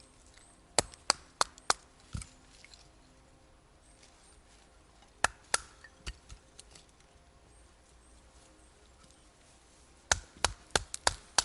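Dry kindling wood being worked for a campfire: sharp woody cracks in three quick runs of three or four, with quiet pauses between.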